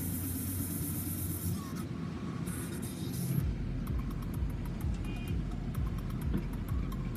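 Distant diesel engines of tracked excavators and articulated dump trucks working, a steady low drone. The low rumble grows heavier about halfway through.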